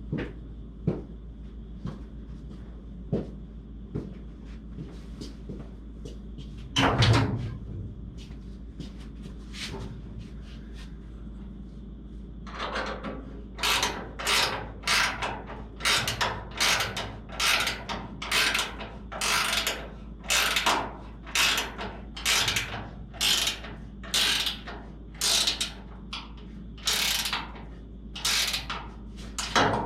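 Hand ratchet snugging down a body bolt. There are a few scattered clicks and one loud knock about seven seconds in. From about halfway through comes steady back-and-forth ratcheting, about two strokes a second.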